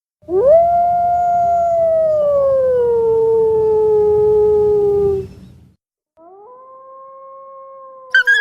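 Eastern wolf howling: one long howl that swoops up, holds, then slides slowly down in pitch and stops. After a short pause a second, fainter and steadier howl begins, and a sharper, higher cry breaks in near the end.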